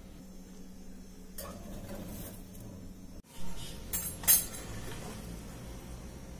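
A metal spatula clinking and scraping against a glass baking dish as a portion of baked potato gratin is served. There are three sharp clinks in quick succession past the middle, the last one the loudest.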